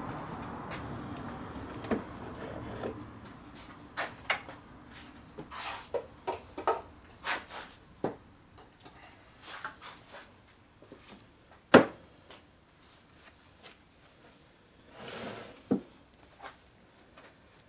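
Scattered knocks and clicks of small hard parts being handled and set down, with one sharp knock about twelve seconds in and a brief rub near the end. A steady whirring noise fades out over the first few seconds.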